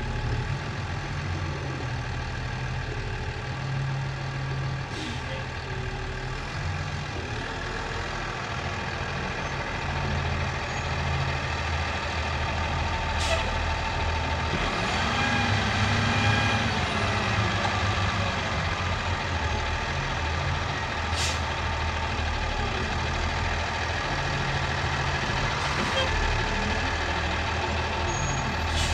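Engine of a hay bale squeeze running steadily while loading bales. It speeds up and settles again around the middle, with a few sharp clicks or knocks.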